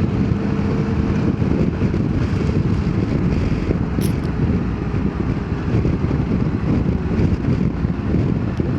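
Motorcycle engine running steadily under way, mixed with road and wind noise buffeting a helmet-mounted camera microphone.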